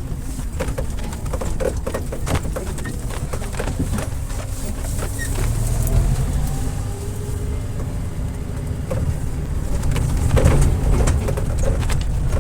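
Pigeons cooing over a steady low rumble, with scattered clicks.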